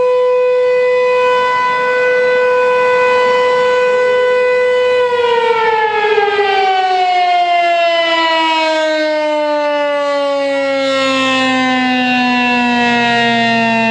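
American Signal T-135 outdoor warning siren sounding a steady tone, then about five seconds in its pitch begins falling smoothly and keeps sliding lower as the siren winds down.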